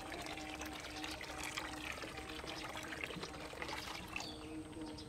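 Water pouring in a steady stream from a stainless steel kettle into a plastic basin already partly full of water, a continuous splashing trickle.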